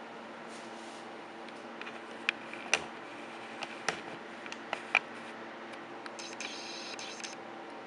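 Handling noise from a handheld camera being moved and zoomed: a handful of sharp clicks and taps, then a brief scratchy rustle, over a steady low hum.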